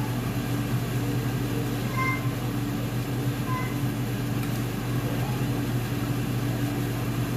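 A steady motor hum with a constant whir underneath, running evenly throughout. Two brief, faint high tones sound about two and three and a half seconds in.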